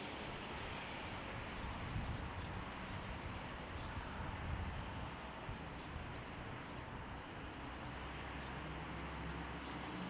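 A taxiing regional jet's turbofan engines running at idle: a steady rush of engine noise with a faint high whine.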